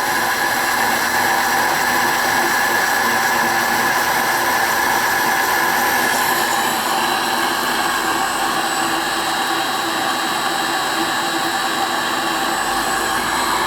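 Homemade lathe running steadily with its tool cutting slowly into hard steel, a constant whine with a hiss.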